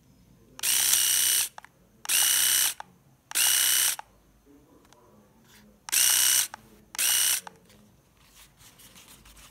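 Philips AquaTouch S1223 rotary electric shaver, its pop-up trimmer raised, switched on and off five times. Each run lasts under a second with an even motor buzz, starting and stopping abruptly.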